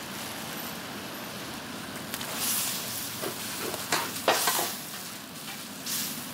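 Greens and raw sliced meat sizzling in a hot metal wok, with a steady hiss. From about two seconds in, a metal ladle and spatula scrape and clack against the wok several times as the ingredients are stirred.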